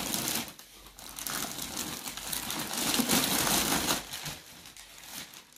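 Clear plastic bag crinkling and rustling as an induction cooktop is slid out of it and the bag pulled away, dying down about four seconds in.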